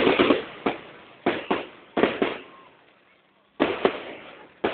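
Fireworks bursting: a rapid run of sharp bangs in clusters of two or three, each fading out with a short echo, with a pause of about a second before the last few.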